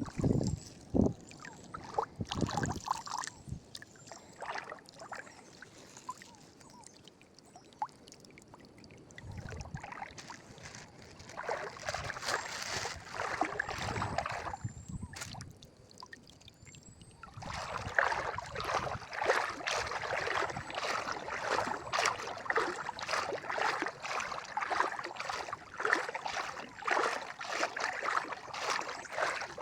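Water splashing and trickling in close, irregular spatters. It comes in after a quieter stretch with a few soft knocks, stops briefly, then runs on steadily.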